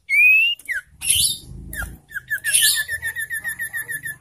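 Common iora calling: a rising whistle, a short falling note and a harsh chatter, then a fast run of repeated whistled notes, about seven a second, through the last two seconds.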